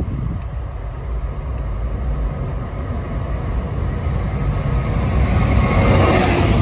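GBRf Class 66 diesel-electric freight locomotive, with its EMD two-stroke V12 engine, approaching at speed and passing close by. The low rumble builds steadily and is loudest about six seconds in as the locomotive goes past, with the container wagons behind it.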